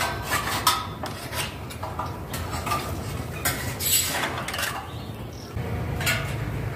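Irregular clatter of sharp knocks and clinks from hard objects being handled, some ringing briefly. A low steady hum comes in about five and a half seconds in.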